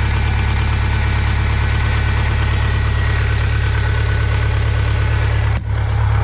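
1968 Case 580CK's 188 four-cylinder diesel engine running steadily with a fast, even beat, with a momentary drop about five and a half seconds in. It is running for the first time in almost 20 years, after a fuel starvation fault.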